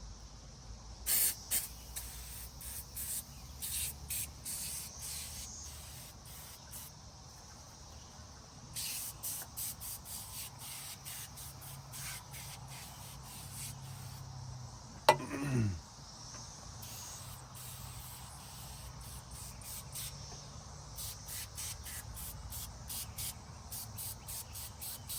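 Aerosol can of oven cleaner sprayed in many short hissing bursts. About halfway through, one brief sound falls steeply in pitch and is the loudest thing heard.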